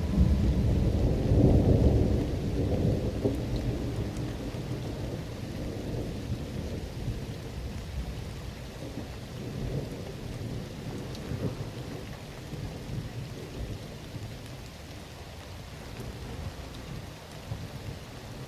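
A long, low roll of thunder, loudest in the first few seconds and slowly dying away, over steady rain.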